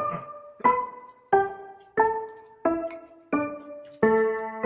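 Background music: a piano-like keyboard melody, single notes struck about every two-thirds of a second, with a fuller chord about four seconds in.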